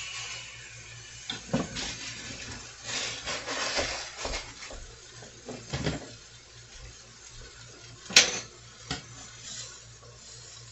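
Scattered clinks and knocks of kitchen utensils and dishes, the sharpest about eight seconds in, over a faint sizzle from the skillet that dies away within the first second.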